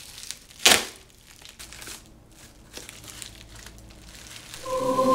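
Black plastic bubble mailer crinkling as it is slit and torn open with a pocketknife, with one sharp rip a little under a second in. Near the end a steady held musical note starts.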